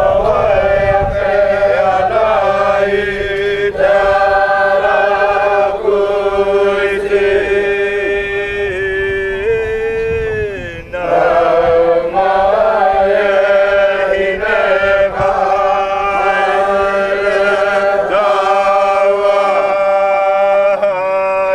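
A group of voices singing a Polynesian welcome chant in long held notes. Each phrase slides down at its end, with a short break about halfway through.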